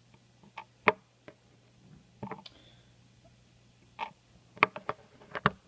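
Scattered small clicks and light knocks, about eight of them, the loudest about a second in: an EEPROM chip being handled and reseated the right way round in its programmer's socket after it had gone in wrongly and the write failed.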